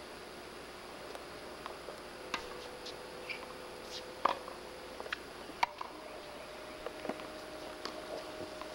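Tennis rally on a hard court: sharp knocks of racket strikes and ball bounces, one or two seconds apart, over steady tape hiss.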